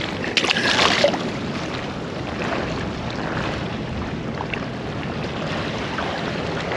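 Steady wash of wind on the microphone and water along the pier, with a brief louder rustling rush about half a second in.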